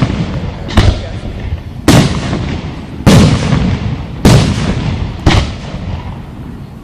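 Aerial fireworks shells bursting: five loud booms, roughly a second apart, each trailing off in a rumbling echo.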